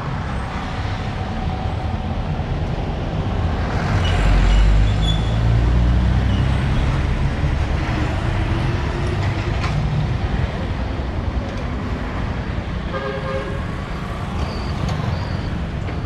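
Town street traffic: a heavy vehicle passes close with a low rumble about four seconds in, and a vehicle horn toots briefly near the end.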